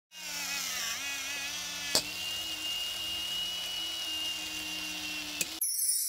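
Small battery-powered motor of an electric jar opener running with a steady whir. Its pitch dips about a second in, a sharp click comes about two seconds in and another near the end, and then it cuts off. A bright chime-like shimmer starts just as it stops.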